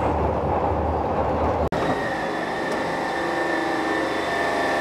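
Glasgow Subway train running, a steady low rumble. About two seconds in the sound cuts to a steady whine of several held tones.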